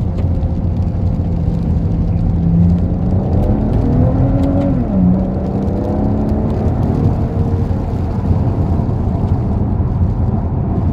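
Maserati Ghibli's 3.0-litre twin-turbo V6 heard from inside the cabin while driving, over road rumble. Its pitch climbs under throttle, drops sharply about five seconds in, then runs on steadily.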